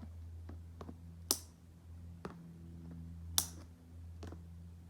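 Toy packaging being cut open: a handful of sharp snips, the loudest about a second in and again about three and a half seconds in, over a low steady hum.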